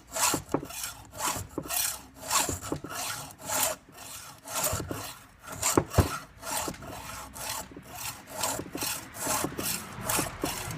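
Hand file rasping back and forth across the cutter teeth of a Craftsman chainsaw chain in steady repeated strokes, about two a second, as the teeth are sharpened.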